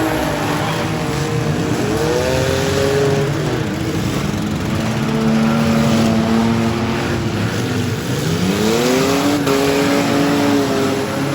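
Several six-cylinder demolition derby car engines running at once, revving up and down, with a clear rev rising about two seconds in and another near the end.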